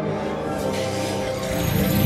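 Demo-disc music played back through a home-theater speaker system with M&K speakers and dual SVS subwoofers, heard in the room: held, steady tones, with a deeper, noisier swell building near the end.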